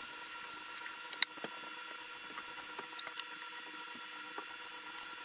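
A plastic shaker cup being rinsed and scrubbed at a kitchen sink: tap water running into the cup and a sponge rubbing it, with a few light knocks, the sharpest about a second in.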